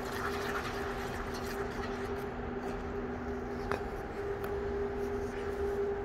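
Steady two-note hum of ice-arena machinery under the hiss of skate blades gliding on the ice, with one sharp click about two-thirds of the way through.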